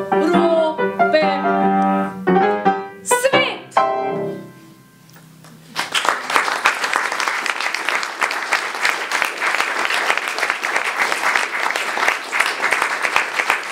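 A woman sings the last line of a chanson over piano, ending on a held note that dies away. About six seconds in, the audience breaks into applause that carries on steadily.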